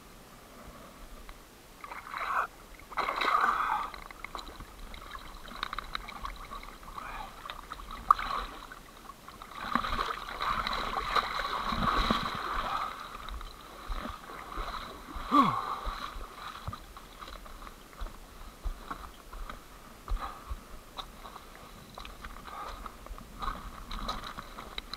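Water splashing and sloshing in irregular bursts as a diver wades out through shallow water, loudest about three seconds in and again for a few seconds around the middle.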